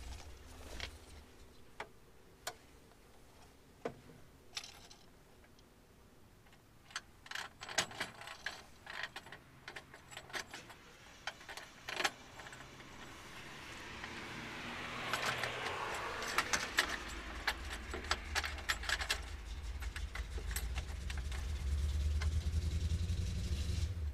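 Small metal clinks and taps of bolts, washers and a nut being handled and fitted to light-bar mounting brackets on a truck bumper. In the second half a low rumble builds, with a rushing hiss rising and fading around the middle.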